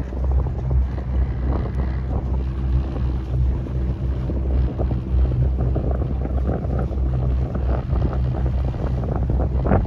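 A boat's engine running steadily under way, a low drone, with wind buffeting the microphone.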